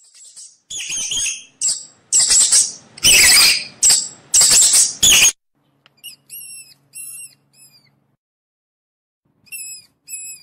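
Rodent squeaking: a run of loud, harsh, high squeals for about five seconds, then short, clear, chirping squeaks in small groups of three or four, with a pause before the last group.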